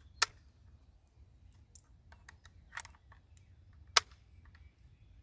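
Scattered sharp metallic clicks of rifle cartridges being handled and pressed into a magazine, three of them louder than the rest.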